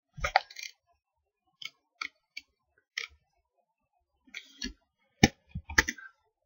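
Computer keyboard keystrokes and mouse clicks while text is edited: about a dozen short, separate clicks at irregular intervals, with short pauses between them.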